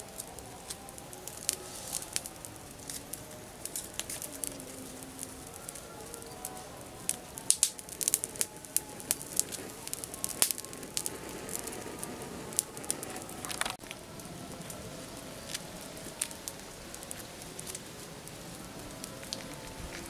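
Small campfire of dry twigs crackling, with scattered sharp pops that come thickest around the middle.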